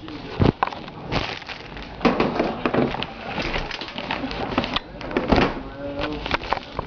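Handling noise: irregular knocks, clicks and rustling as a camera is picked up and set down, with two sharper knocks, one about half a second in and one near five seconds.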